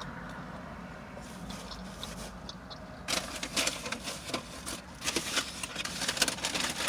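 Crisp, irregular crackling and rustling up close, from about three seconds in, of fast-food paper packaging and crunchy food being handled and eaten, over a low steady hum.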